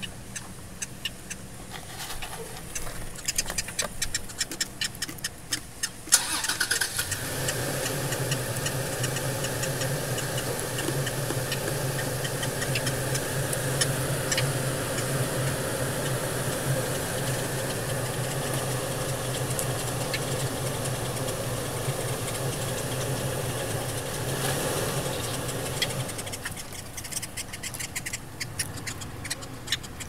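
A car engine starts about six seconds in and runs at a steady idle for about twenty seconds, then stops. Before it there are only a few faint clicks.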